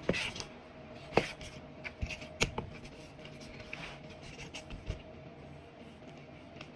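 A few light clicks and taps of kitchen utensils and containers being handled while ingredients are added to chicken, spaced a second or two apart over a faint steady hum.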